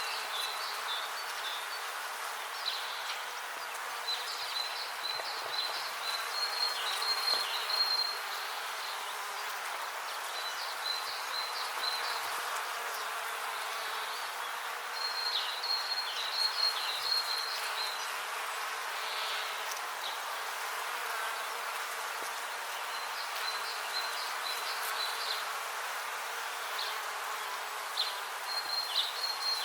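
Many bees buzzing in a steady, continuous hum, with short runs of high chirping recurring every few seconds.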